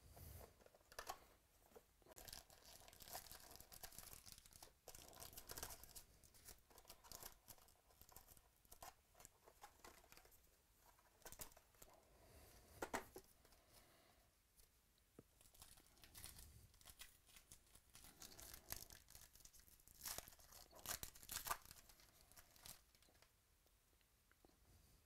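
Faint crinkling and tearing of foil trading-card pack wrappers being ripped open, along with a cardboard card box being handled. The sharpest crackles come about halfway through and again near the end.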